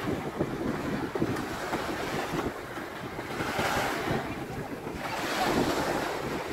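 Small waves breaking and washing up a sandy shore, the wash swelling twice, about halfway through and near the end, with wind buffeting the microphone as a low rumble.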